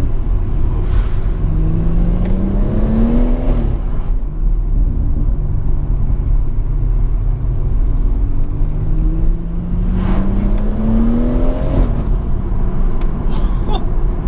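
BMW M140i's turbocharged straight-six, heard through the M Performance exhaust from inside the cabin, pulling hard twice. Each time its note rises steadily in pitch and then cuts off suddenly at a gear change or lift-off. Wind noise comes in through the part-open windows, and a few short sharp cracks follow near the end.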